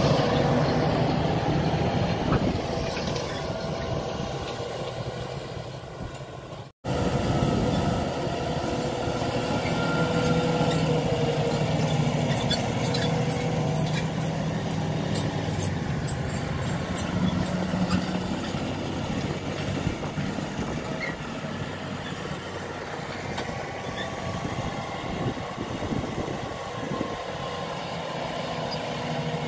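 New Holland T7 tractor's diesel engine running steadily as it pulls a cultivator across a field. It fades over the first few seconds as the tractor moves away, cuts out for an instant about seven seconds in, then runs on at an even level.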